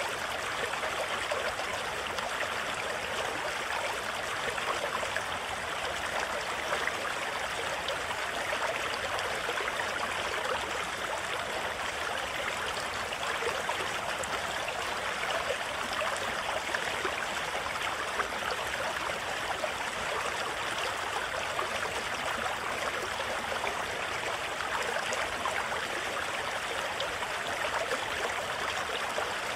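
River water rushing over a shallow rocky rapid: a steady, unbroken rush of white water.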